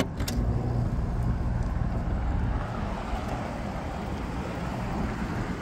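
Pull-out fuse block clicking into an air conditioner's disconnect box, then the rooftop condensing unit powering up and running with a steady low hum. A hard-start kit has just been fitted to help its compressor, which was not always starting.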